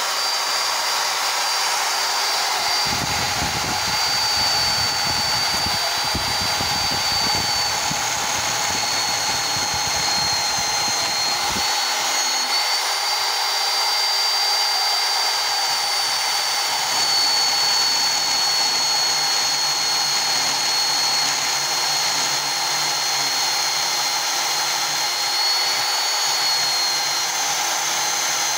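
Vertical metal-cutting band saw running steadily with a high whine while a bent metal tube is fed into the blade.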